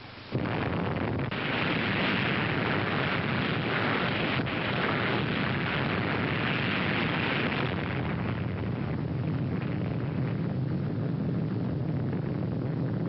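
Nuclear bomb exploding at sea: the sound starts suddenly about a third of a second in and becomes a sustained rushing rumble. It is harshest for the first several seconds, then settles into a steadier low rumble.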